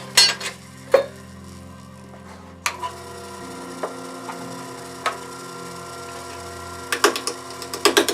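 Jet 1014 mini wood lathe running with a steady motor hum while a turning tool knocks against the spinning ash blank: a few sharp, separate knocks, then near the end a rapid regular tapping as the tool meets the uneven, out-of-round blank on each turn.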